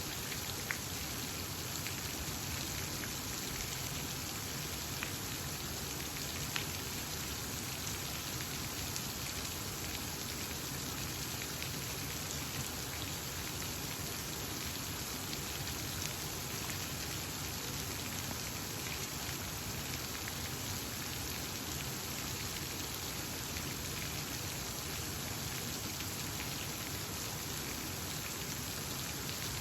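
Steady rushing, splashing water noise with a few faint sharp drip-like ticks scattered through it.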